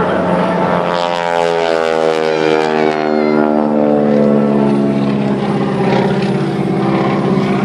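Aerobatic propeller airplane flying past, its engine drone falling in pitch over the first few seconds as it goes by, then holding steady.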